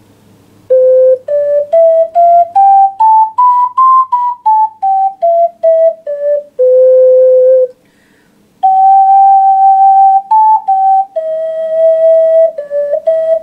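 Ceramic alto C ocarina played. It runs a scale of short separate notes up about an octave and back down, then holds a long low note. After a short pause it plays a slow tune of longer held notes.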